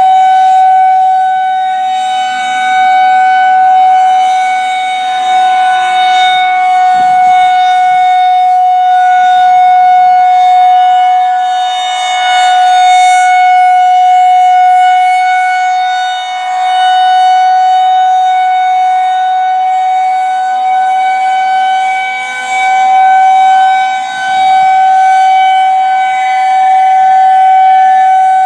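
Federal Signal 2001-130 rotating outdoor warning siren sounding a loud, steady tone at constant pitch. Its loudness swells and dips every few seconds as the rotating head sweeps toward and away.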